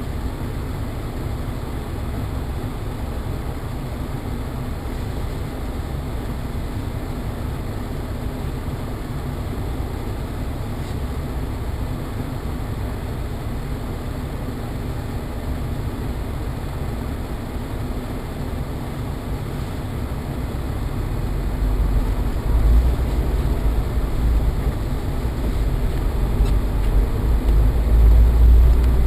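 Engine and road noise inside a moving car's cabin, a steady low rumble that swells into a louder, deeper drone over the last several seconds.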